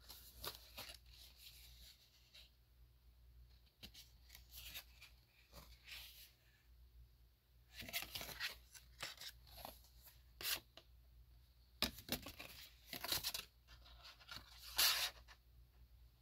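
Stiff cardstock of an accordion-fold postcard being unfolded and handled: irregular paper rustles and scrapes, with the sharpest bursts in the second half.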